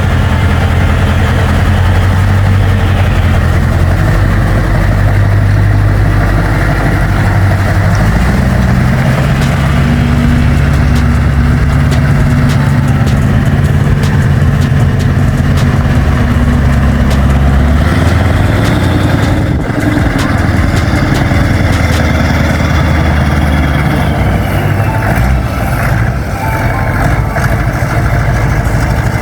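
Scania 143's V8 diesel engine running loud and steady, its note shifting up and down a few times.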